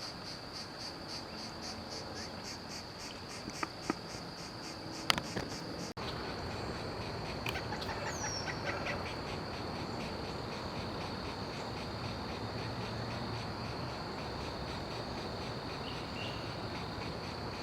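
Insects trilling outdoors: a steady, high-pitched drone that runs without a break. A few sharp clicks come around four to five seconds in, and a short falling bird note is heard about eight seconds in.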